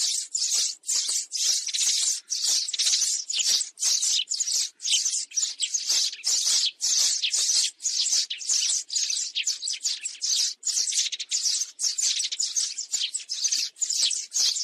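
Sparrows chirping in a dense, continuous chatter of rapid short high chirps: a flock-calling sparrow sound of the kind used as a lure to draw sparrows to a trap.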